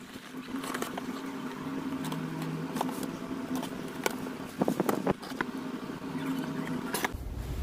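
A cardboard shipping box being opened by hand: packing tape cut with small scissors and the cardboard flaps handled, giving a run of short clicks, snips and rustles over a steady background hum. A low rumble comes in near the end.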